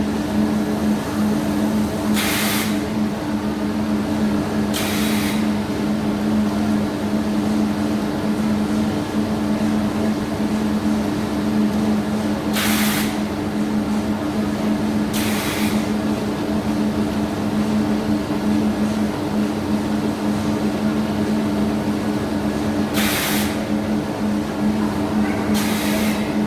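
Steady hum of factory machinery, with short hisses that come in pairs about two and a half seconds apart, each pair recurring roughly every ten seconds.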